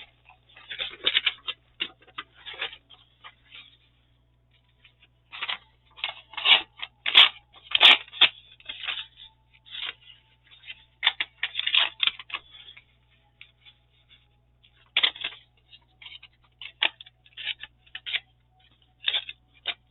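Paper being handled at a craft desk: irregular short rustles and crinkles of papers being picked up, moved and laid down, a little louder around the middle.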